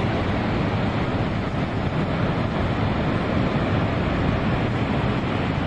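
Loud, steady rushing of water jetting from the Three Gorges Dam's open flood-discharge gates and crashing into the river below, an unbroken dense noise heaviest in the low range.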